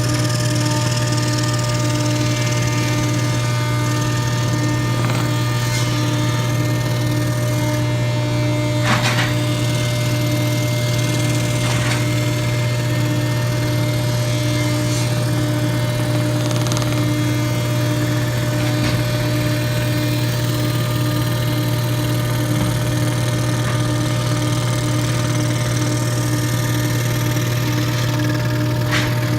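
SCR-70 scroll saw running steadily with a strong low hum and a fast pulsing buzz, with a few faint ticks along the way.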